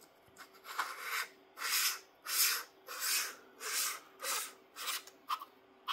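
Hand screwing a threaded metal adapter stack onto an astronomy camera body, turned in short repeated strokes: about eight dry rasping rubs of hand on knurled metal and threads, a little over one a second, until it sits snug.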